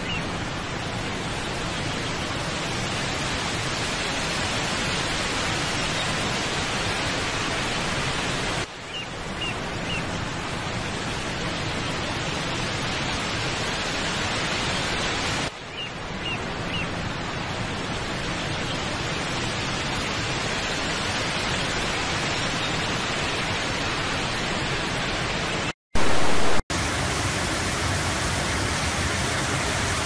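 A steady rushing noise, broken by two brief dips. About 26 seconds in comes a short, loud burst of TV static, then the rush of a waterfall.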